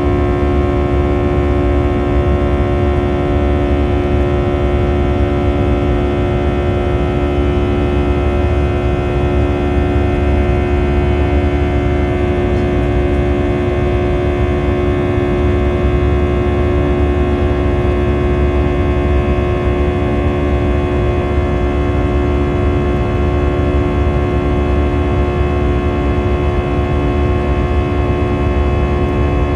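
Airbus A319's wing-mounted turbofan engine running at climb power, heard inside the cabin: a steady drone with a deep rumble and a set of steady humming tones that hold unchanged throughout.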